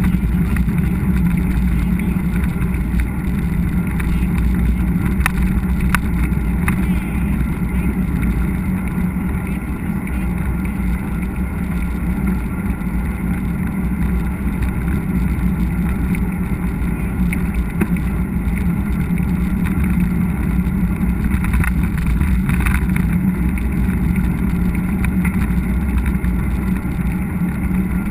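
Steady rumbling wind and riding noise on a mountain-biker's action camera, with a few short rattles or knocks from the bike over the trail.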